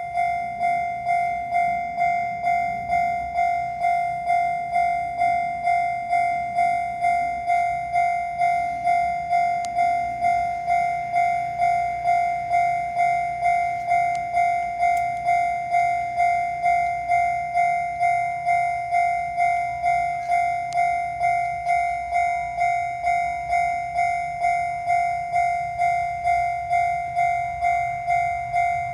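Japanese level crossing's electronic warning bell ringing in a steady, even rhythm of about two strikes a second, over a low rumble.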